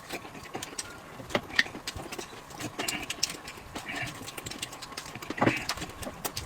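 Someone eating dumplings: scattered wet mouth clicks and chewing sounds, with a brief louder sound about five and a half seconds in.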